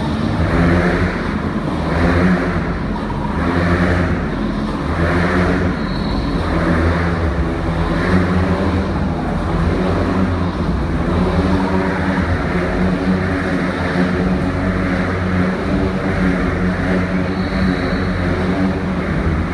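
Motorcycle engines running hard as riders circle inside a steel mesh globe of death. The engine noise swells and fades in a steady rhythm about every second and a half.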